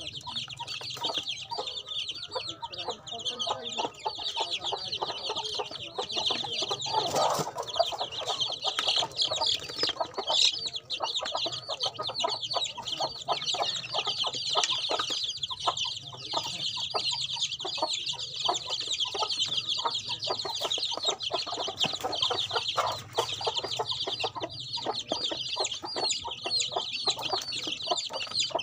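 A brood of chicks peeping continuously, many high, short calls overlapping with no break, over many soft ticks from beaks pecking at the litter.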